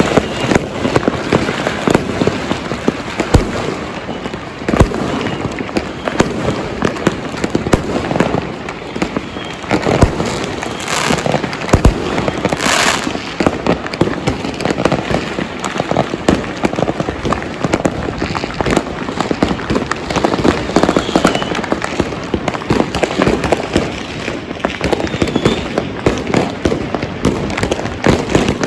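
Many fireworks and firecrackers going off at once, a dense, unbroken crackle of small bangs, with louder single blasts standing out every few seconds.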